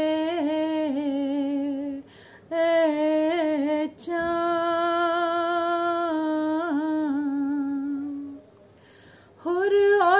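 A woman's unaccompanied voice reciting an Urdu salaam in long held, melismatic notes, with short breaks for breath about two seconds in and again near the end.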